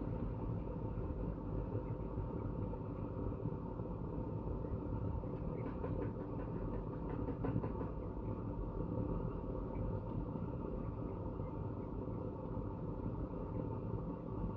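A steady low mechanical hum, with a few faint clicks about six to eight seconds in.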